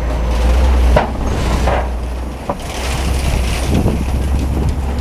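Open-sided safari ride truck driving over a rough, bumpy track: a steady low rumble with rattles and a few sharp knocks as the vehicle jolts, the loudest about a second in and again halfway through.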